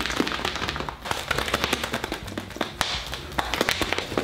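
Small plastic bottle of slime mixture (face mask or glue, contact lens solution and baking soda) shaken hard, giving a rapid, irregular run of knocks and clicks as the mixture is whipped into slime.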